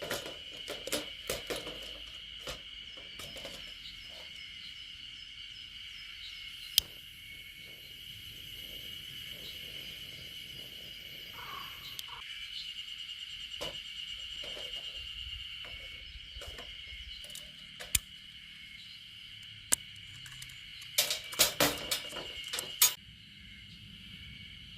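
A steady, high-pitched chorus of insects, with scattered clicks and knocks over it and a quick cluster of louder knocks near the end.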